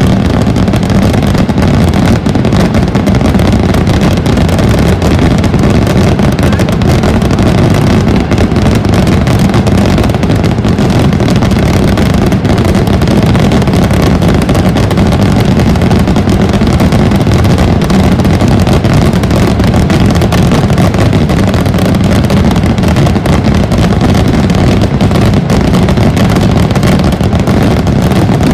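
A massed barrage of firework rockets bursting overhead without pause, the bangs so close together that they merge into one unbroken, very loud rumbling din.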